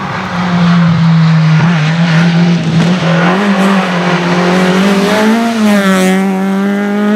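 The 1997 VW Golf 3 Kit Car's naturally aspirated 2.0-litre straight-four rally engine is worked hard at high revs as the car drives past. The note holds strong with small rises and falls in pitch, then bends downward about six seconds in as the car goes by.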